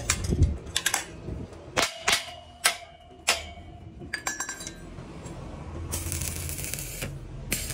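Small hammer tapping the welded steel tube frame, about seven sharp knocks over three seconds, some leaving a brief metallic ring. About six seconds in, a stick-welding arc hisses and crackles for about a second.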